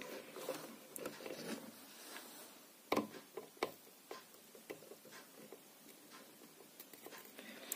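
Faint scattered ticks and taps from a soldering iron and wires being worked against a circuit board, with two sharper clicks about three seconds in.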